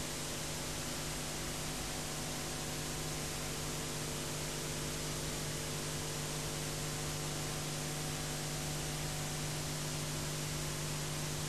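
Steady hiss with a constant low hum and no other sound: the noise floor of an old analogue video recording.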